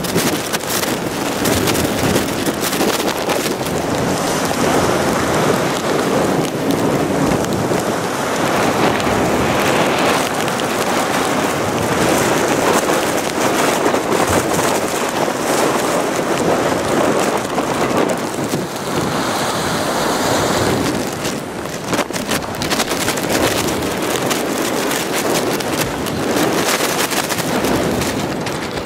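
Storm-driven wind and choppy harbor water slapping around docks and pilings, a steady rushing noise with wind buffeting the microphone.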